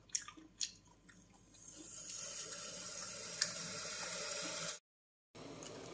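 Water running steadily from a kitchen tap, building up about a second and a half in and cutting off suddenly near the end, after a few light clicks of handling.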